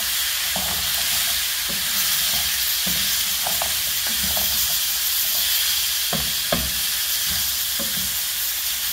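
Chopped tomatoes and chicken pieces sizzling in a pot as a wooden spoon stirs and scrapes through them, with scattered light knocks of the spoon against the pot and one sharper click near the end.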